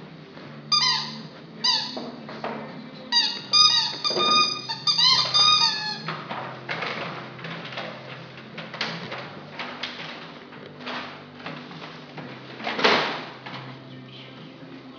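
A puppy's squeaky toy being squeezed in its jaws. It gives a string of short, sharp squeaks over the first six seconds, a couple on their own and then several in quick succession. After that come softer scuffling noises and one louder scuffle near the end.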